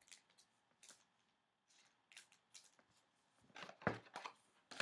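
Quiet handling of a thick trading card: light scrapes, taps and clicks as it is moved about in the fingers, with a cluster of louder knocks and one low thump about four seconds in.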